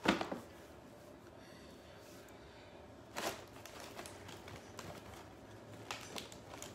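Quiet room with a few scattered clicks and taps: a sharp one at the start, another about three seconds in, and lighter ticks near the end.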